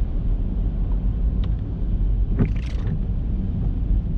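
Steady low rumble inside a car's cabin, with one short swish of the windscreen wiper about two and a half seconds in and a faint click about a second before it.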